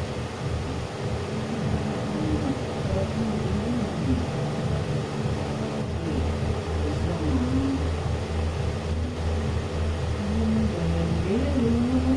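Soft, murmured speech, a quiet pleading voice, over a steady low hum.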